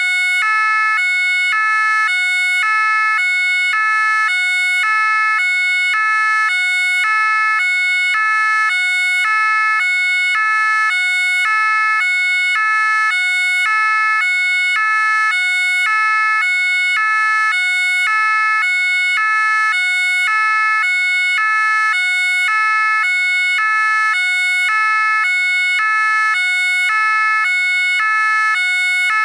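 French gendarmerie two-tone siren sounding continuously, alternating steadily between a low and a high note about once a second.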